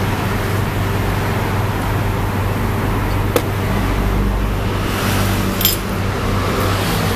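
Steady low rumble of road traffic and idling engines. A sharp click comes a little over three seconds in, and a short ringing clink of metal chopsticks against a dish about two seconds later.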